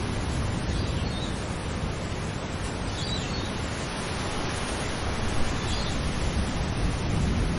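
Steady wind noise on the microphone, heaviest in the low rumble, with faint short high chirps every two to three seconds.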